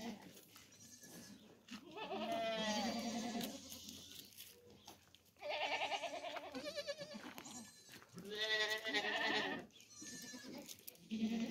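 Goats bleating: three long, wavering bleats, one after another, with short pauses between them.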